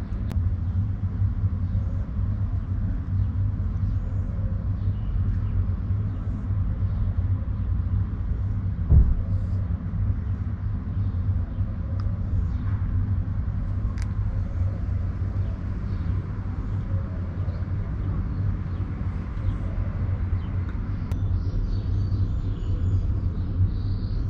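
Steady low rumble of outdoor background noise, with a single thump about nine seconds in.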